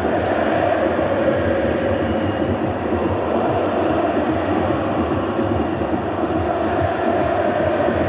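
Wind buffeting the camera microphone: a steady rushing rumble with irregular low flutter.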